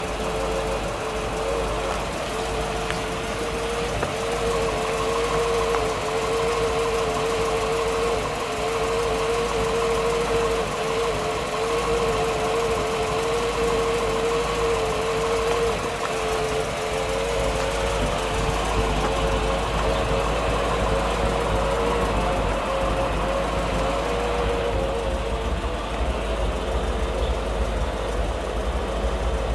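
An engine running steadily, a continuous drone that holds one even pitch and grows fainter over the last several seconds.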